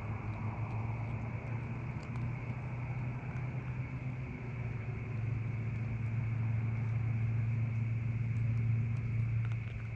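A steady low motor-like hum that grows slightly louder through the second half and eases off near the end, with a steady high-pitched hiss above it and a few faint ticks.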